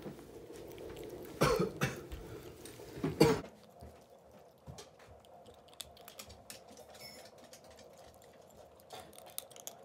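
A cat eating dry kibble and canned food from a bowl: crunching and chewing heard as many small clicks. Two louder bumps come in the first few seconds.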